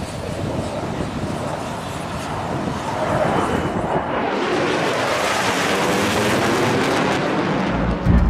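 Jet aircraft flying overhead: a rushing engine roar that builds from about three seconds in and is loudest a few seconds later.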